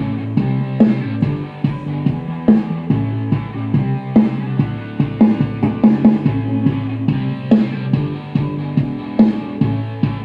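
Electric guitar with drums and bass generated by a DigiTech Trio+ band-creator pedal, playing a steady rock groove through a guitar amplifier's 12-inch speaker. Through that speaker the drums and bass lose definition, to the player's ear.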